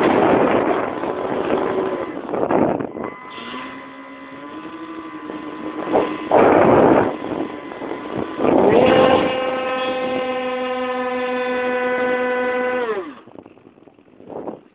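Onboard sound of a Twinstar II radio-controlled twin-motor model plane in flight: wind rushing past the phone alternates with the steady whine of its electric motors. The whine steps up in pitch a few seconds in, holds level, and cuts off suddenly about 13 s in.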